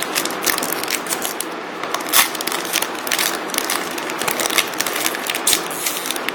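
Foil wrapper of a Match Attax trading-card packet crinkling and crackling as it is torn open and handled, with many sharp crackles throughout.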